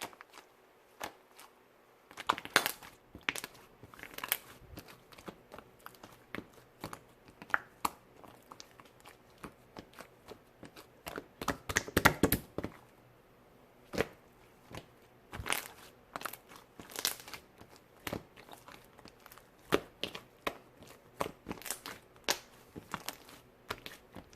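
Fluffy slime being pressed, poked and stretched by hand, giving irregular sharp sticky clicks and pops, densest in a burst about halfway through.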